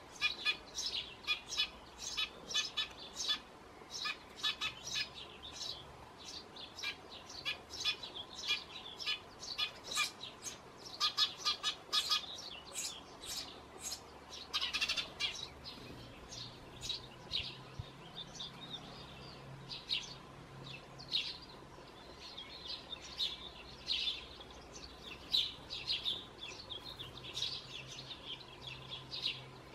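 Eurasian tree sparrow chick begging to be fed from a nest box: rapid, high chirps, several a second, packed closely and louder in the first half, then thinner and more spaced out.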